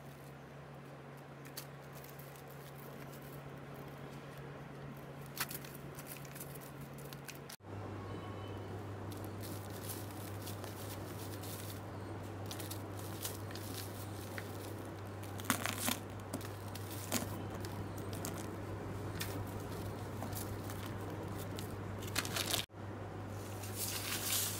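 Hands crushing moulded clumps of sand and cement, a gritty crumbling full of small crackles as the clumps break up and the grains pour into a barrel, over a steady low hum.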